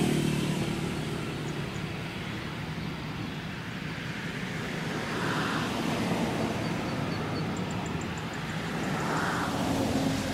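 Boeing 777F's General Electric GE90 turbofan engines at taxi power, a steady rumble that swells twice, about halfway and near the end.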